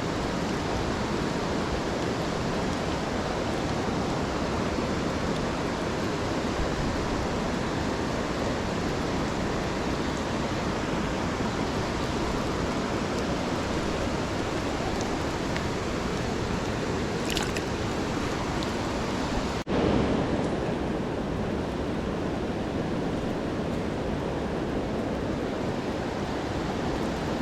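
Creek water rushing steadily, an even hiss of flowing water with a brief break about twenty seconds in.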